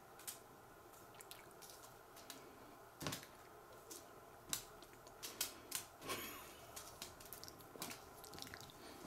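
Scattered light taps and a brief rustle as a wand cat toy's fabric lure is swung and flicks onto a wooden floor, with a cluster of quick taps around the middle.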